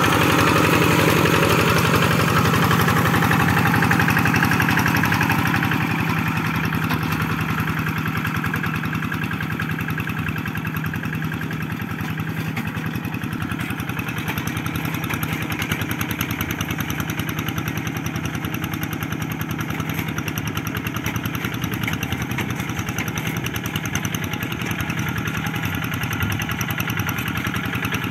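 Kubota two-wheel hand tractor's single-cylinder diesel engine running steadily under load while plowing, with a fast, even chugging beat. It grows fainter about six seconds in as the tractor works farther away.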